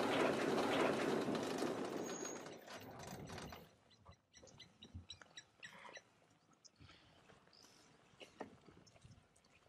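Loud splashing of an animal bounding through a shallow river, which stops about three and a half seconds in; after it only faint scattered chirps and clicks remain.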